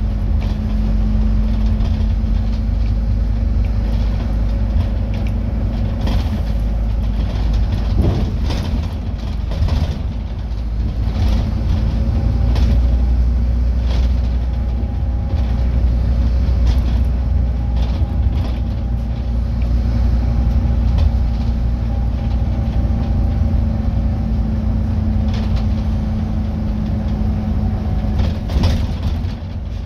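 A Scania N230UD double-decker bus on the move, heard from inside on the upper deck: its five-cylinder diesel engine and the road give a steady low rumble. A faint whine rises and falls through the middle, and rattles and knocks from the bodywork and fittings come throughout.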